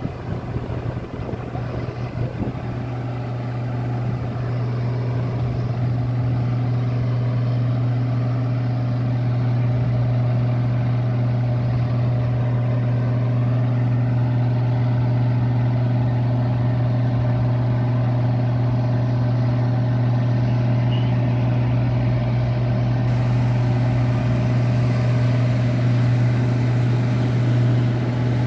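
An engine running steadily at idle, a constant low hum that does not change.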